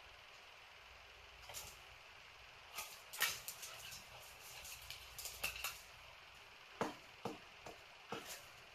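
Two dogs play-wrestling on a tiled floor: scattered clicks and scuffles of claws and paws on the tile, busiest from about three to six seconds in, with a few more near the end.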